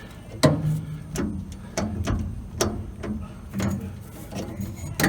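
A run of light mechanical clicks and knocks, several in a row and a little under a second apart, the first the loudest: hand work at a car's brake pedal and its bungee-cord return spring.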